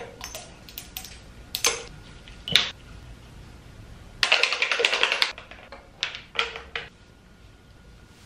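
Small clicks and taps of plastic skincare bottles and caps being handled. About four seconds in there is a crackling stretch of about a second as product is squeezed from a flip-cap plastic tube, then brief rustles of hands on skin.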